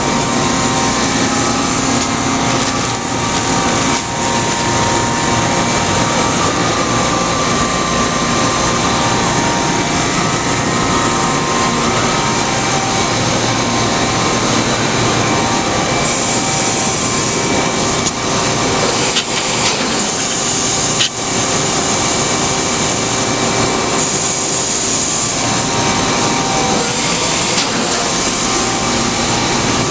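Loud, steady mechanical running noise from a CNC horizontal machining center and its shop floor, with a faint whine and a few sharp clicks partway through.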